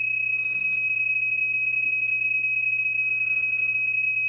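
PSK31 transmit audio from the digital-mode software, played through laptop speakers: a single steady high-pitched tone, the signal that keys the Elecraft KX2 while it sends a CQ call.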